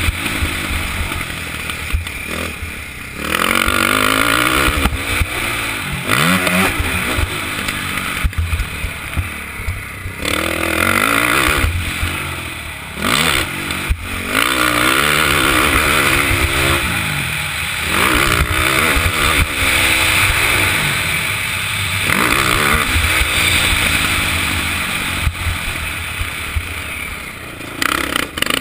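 KTM 450SX ATV's single-cylinder four-stroke engine at racing speed, its pitch repeatedly climbing under throttle and dropping off. It backs off briefly several times, near 3, 10, 14, 22 and 27 seconds in, as heard from a helmet-mounted camera.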